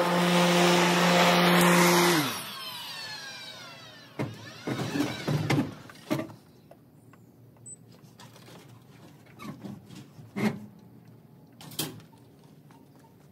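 Ego electric zero-turn mower running with a steady motor whine, then switched off about two seconds in: the whine falls in pitch and fades as the motors and blades spin down. After that come a few scattered knocks and clatters.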